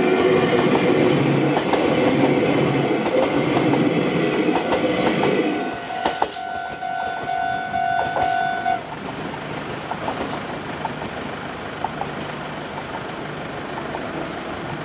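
A Meitetsu Chikkō Line train passing over a level crossing, wheels clattering and rumbling for about the first five and a half seconds. The crossing's warning bell rings on with a steady two-tone ring, then stops about nine seconds in, leaving a lower steady background.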